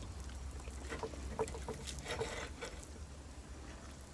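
Close-miked eating sounds: a quick run of small wet clicks and smacks of chewing and cutlery, bunched in the middle, over a steady low hum.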